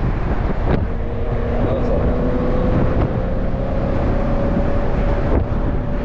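Nissan 370Z's V6 engine running at a steady cruise, its note breaking off briefly about a second in and then climbing slowly. Heavy wind rushes through the open-top cabin.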